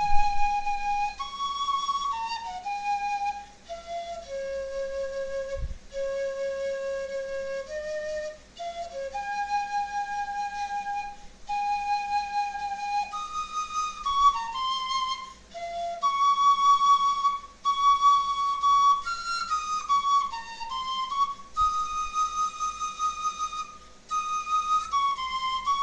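Fife played solo: a slow melody of long held notes in phrases broken by short pauses for breath, moving higher in the second half.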